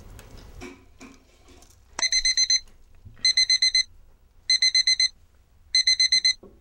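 Alarm clock beeping: from about two seconds in, bursts of rapid high beeps, each burst about half a second long, repeating about every second and a quarter, four times. It is the wake-up alarm sounding.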